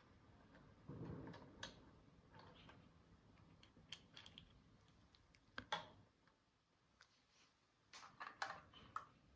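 Faint, scattered clicks and taps of small objects being handled, with a brief soft rustle about a second in and a quick cluster of clicks near the end.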